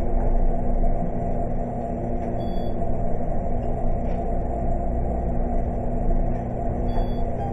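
Hotel passenger elevator car travelling between floors: a steady hum and rumble, with two brief faint high tones, one about two and a half seconds in and one near the end.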